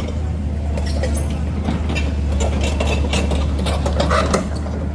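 Heavy diesel engine running steadily at low revs, with scattered short clanks and knocks over it.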